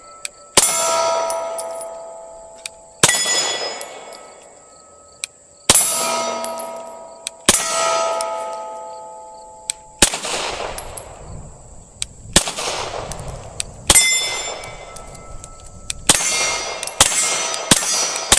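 Heckler & Koch P30L 9mm pistol fired shot by shot, at first a second or two apart and then in a quicker string near the end. Most shots are followed by a steel plate target ringing as it is hit.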